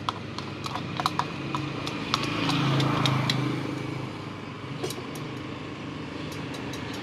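A motor vehicle engine hums as it passes, louder between about two and three and a half seconds in. Scattered light clicks and taps of ice and utensils against a plastic bucket come in the first second or so and again near the end.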